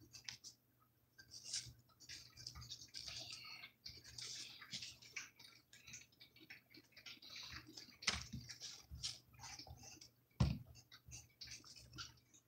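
Pencil scratching on paper in short, irregular writing strokes, with a couple of light knocks on the table, the loudest about ten and a half seconds in.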